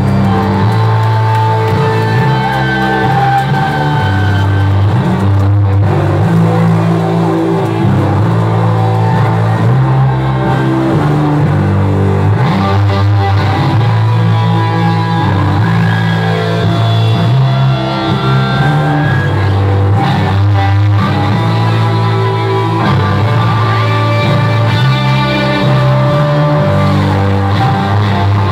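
Live rock band playing loud, with a heavy bass line moving between sustained notes and electric guitar.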